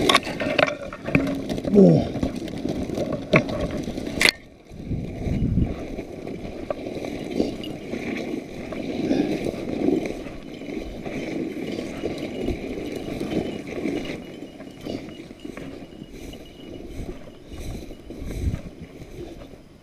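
Footsteps pushing through dry brush and tall dead grass, stems and twigs rustling and scraping against clothing and the shotgun, with a sharp snap about four seconds in.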